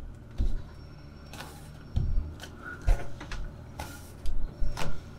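Irregular knocks and thumps as a wooden roof-vent frame is handled and pressed up against the inside of a van's metal roof, with a quick cluster of knocks near the end.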